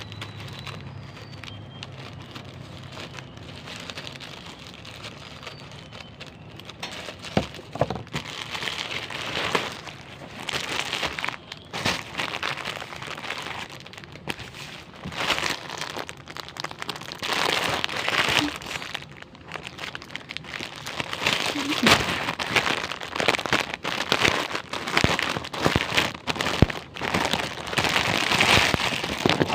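Packaging being handled and unwrapped: irregular crinkling and rustling with sharp clicks. It starts about seven seconds in and comes in uneven bursts for the rest of the time.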